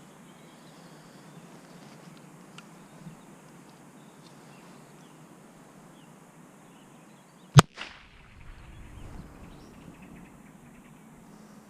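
A single shot from a starting pistol, a sharp crack about two-thirds of the way through, with a brief echo after it.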